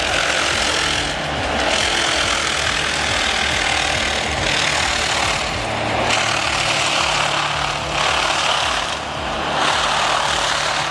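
Heavy diesel machinery working: a steady low engine hum under a loud rushing, grinding noise that swells and drops every second or two.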